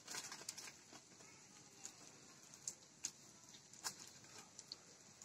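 Faint, scattered ticks and crackles from raw pulao rice grains frying in hot oil in a metal pot, nearly silent in between.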